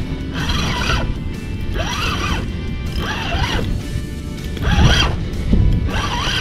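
Spinning reel being cranked in repeated bursts about every second and a half, each burst a whirring wind that rises and falls in pitch, as line is wound in on a hooked fish.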